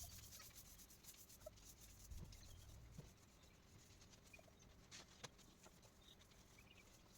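Near silence, with a few faint clicks and an occasional faint chick peep, the kind heard from chicks in a brooder.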